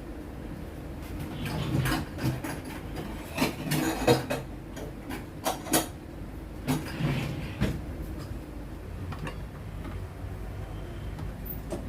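A spatula knocking and scraping against a pan as food is stirred, in a quick run of clinks and knocks from about a second and a half in until about eight seconds, over a steady low hum.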